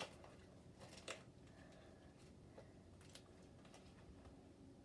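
Near silence: quiet room tone with a few faint, brief clicks spread through it.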